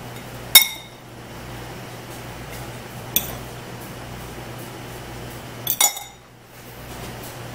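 Utensils clinking against ceramic dishes: a fork tapping a mixing bowl while scooping chicken filling, with a sharp clink about half a second in, a lighter one near three seconds and a quick double clink near six seconds, over a low steady hum.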